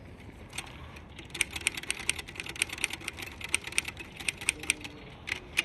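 Royal typewriter being typed on: a steady run of sharp key strikes, about five or six a second, starting just over a second in.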